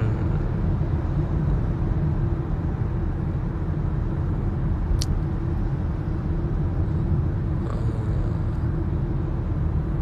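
Steady low rumble of a moving car, heard from inside the cabin, with one short sharp high click about halfway through.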